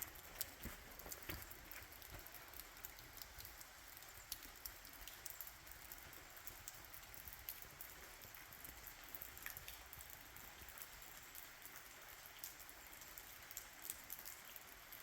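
Light rain falling, faint, with many small scattered drop ticks over a steady soft hiss.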